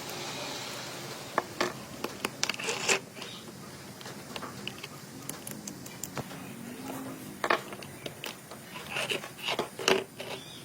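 Irregular small clicks, taps and scrapes, like small hard objects being handled.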